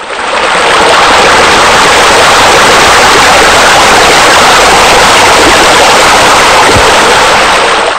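Loud, steady rushing of flowing water, fading in over the first second and falling away at the very end.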